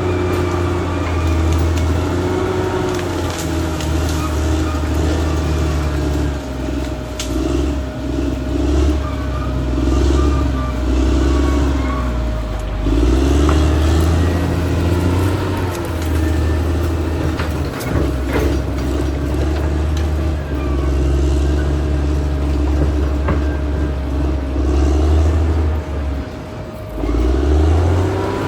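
Caterpillar D6R XL bulldozer's diesel engine working under load, its sound swelling and easing again and again as the machine pushes and grades, with a few sharp knocks from the tracks and blade. The engine drops off briefly near the end, then picks up again.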